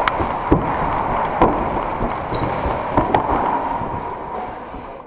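Footsteps thudding on wooden walkway boards and stairs, irregular knocks over a steady rustling background, with the loudest knocks near the start, about a second and a half in and around three seconds in.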